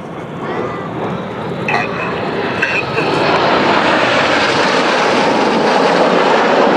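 Red Arrows BAE Hawk T1 jets flying past, their Rolls-Royce Turbomeca Adour turbofan engines making a jet roar that grows louder over the first three seconds and then holds steady.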